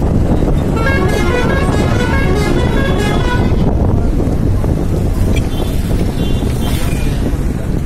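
Private bus running along the road, heard from inside: a steady low engine and road rumble. A run of pitched tones that change every fraction of a second comes in about a second in, and a shorter run comes later.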